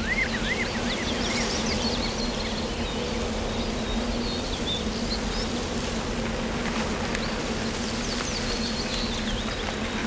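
Steady low buzzing like insects in flight, with a warbling bird trill that ends about a second in and scattered short, high bird chirps.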